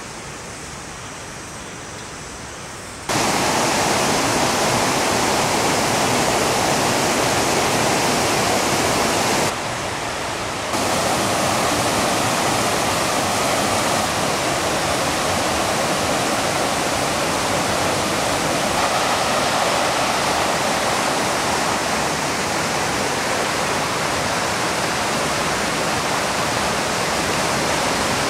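Rushing water of a rocky mountain stream pouring over a small waterfall: a steady rush that becomes much louder about three seconds in and dips briefly around ten seconds.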